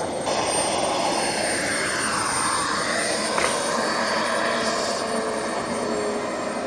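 Small turbine engine of a radio-controlled model jet running, a steady rush with a whine that dips and then rises in pitch. A brief click comes about three and a half seconds in.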